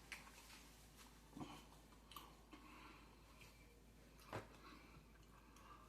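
Faint chewing of fried chicken, with a few soft mouth clicks about a second and a half, two, and four seconds in; otherwise near silence.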